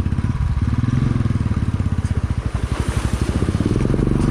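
Motorcycle engine chugging at low speed as the bike rides into a shallow stream, with water splashing and gravel crunching under the tyres in the second half.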